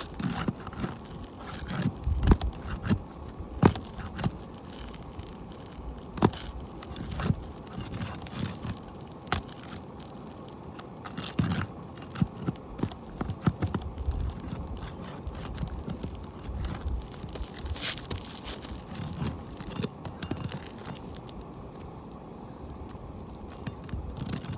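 Irregular scrapes, clicks and knocks of a hand tool working under asphalt roof shingles, loosening a damaged shingle to remove it.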